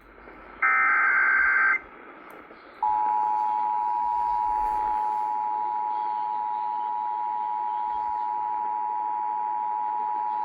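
Emergency Alert System tones on a radio broadcast: a short screeching SAME header data burst lasting about a second, then about a second later the steady two-tone EAS attention signal starts and holds.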